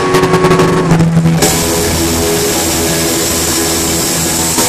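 Live rock band playing loud, with distorted electric guitars and a drum kit. For about the first second and a half the drums hit rapidly over held guitar notes. Then the sound opens into a sustained wall of distorted guitar and cymbal wash.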